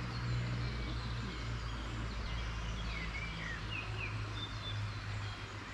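Birds chirping, several short calls between about two and four and a half seconds in, over a steady low hum and outdoor background noise.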